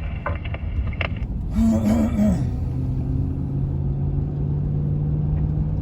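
Low engine rumble of a vehicle, with a brief wavering hum about two seconds in that settles into a steady low hum.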